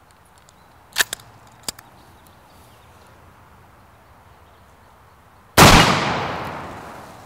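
Two light metallic clicks of a bolt action being worked, then about five and a half seconds in a single very loud rifle shot that rings on and dies away over more than a second. The shot is far louder than the little .22 LR rifle really is: it is a full-calibre Mosin's report laid over it as a joke.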